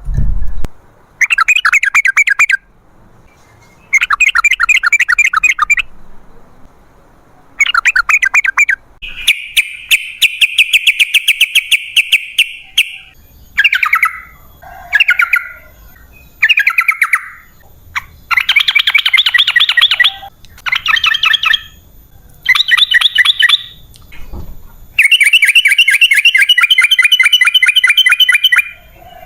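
Yellow-vented bulbul (trucukan) singing. It gives a series of loud, fast chattering phrases, each about one to four seconds long, with short pauses between them.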